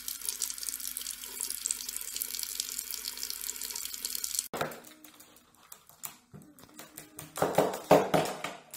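Water running from a bathroom sink faucet in a thin stream, splashing into the basin, cutting off abruptly about four and a half seconds in. After that come scattered light clicks and taps, with a few brief louder sounds near the end.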